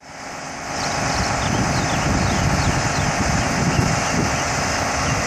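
Caterpillar C18 ACERT diesel engine of a CAT 745C articulated water truck running, a steady low rumble that swells over the first second.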